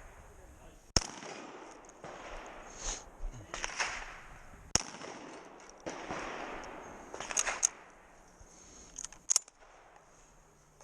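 Shotgun shots fired one at a time during a stage run at steel targets, a few seconds apart, with loud sharp reports at about one second in and again near five seconds, and more further on.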